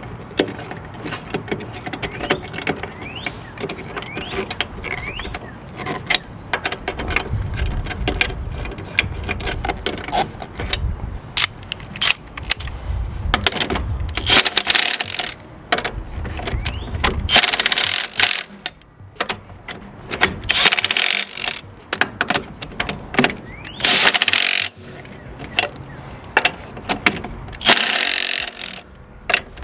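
Metal clinks and knocks of tools and wheel parts being handled, with about five short, loud bursts of a cordless impact wrench in the second half, as lug nuts are run on or off during a zero-turn mower wheel change.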